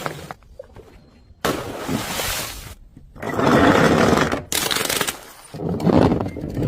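Glass bottles being smashed and crushed: three separate bursts of crunching, shattering glass, each lasting a second or so, about one and a half, three and a quarter, and five and a half seconds in.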